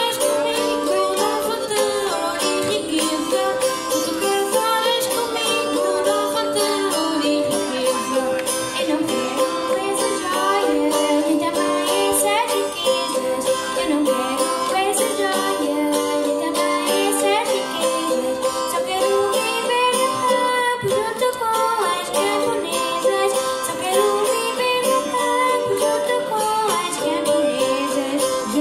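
Live traditional Madeiran folk music: a group singing together over plucked small guitars, amplified through the stage speakers.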